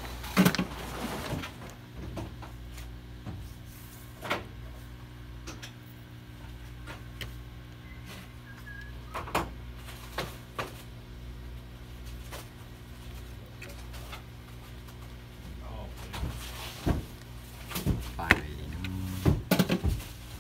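Scattered light clicks and taps as multimeter test probes and gloved hands handle and touch circuit boards on a bench, over a steady low hum. The taps cluster near the start and again near the end.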